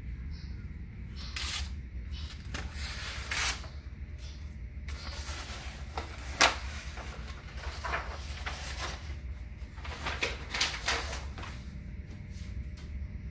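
A sheet of sublimation transfer paper is peeled and lifted off a freshly pressed towel: scattered paper rustles and crinkles, with one sharp snap about six and a half seconds in. A steady low hum runs underneath.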